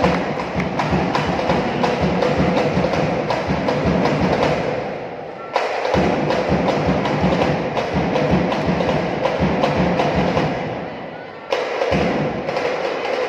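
Fast, steady rhythmic percussion with music filling a volleyball arena, over crowd noise. It fades down twice and cuts back in abruptly, about five and a half and twelve seconds in.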